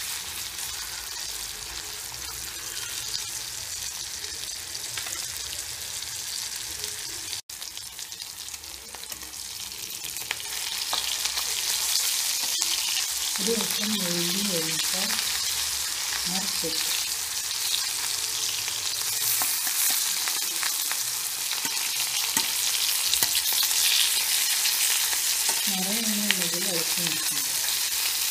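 Chicken pieces frying in hot oil in a pan, a steady high sizzle that grows louder about ten seconds in.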